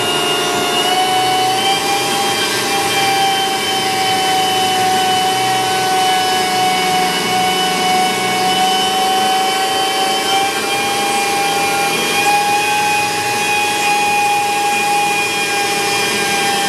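Pneumatic die grinder running continuously with a steady high whine and air hiss, grinding down a brass brake line end fitting to reshape it to fit the caliper.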